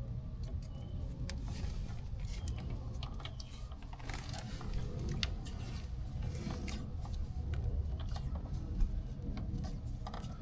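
Electrical tape being pulled off the roll and wrapped around wire connections by hand: scattered crackles and small clicks over a steady low rumble.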